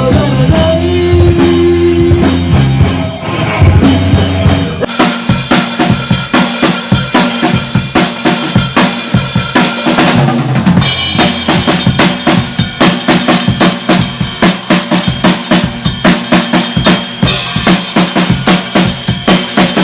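Rock drum kit played along with a backing track. About five seconds in the drumming turns hard and fast, with rapid kick drum and snare strokes and a steady wash of cymbals.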